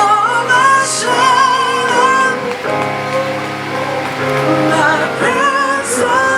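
Worship music: a singer holding long, wavering notes with vibrato over steady sustained accompaniment.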